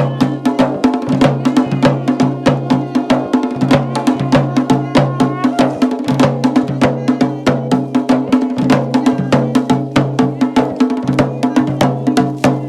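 Music with fast, steady drumming, several sharp strokes a second, over a sustained low droning tone.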